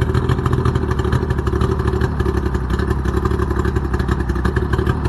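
Boat outboard motor running steadily, with a fast, even exhaust pulse.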